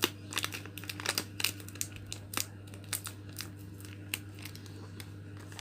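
Plastic-foil coffee sachet wrappers crinkling and crackling as they are handled, in irregular sharp crackles that thin out after the first couple of seconds, over a steady low hum.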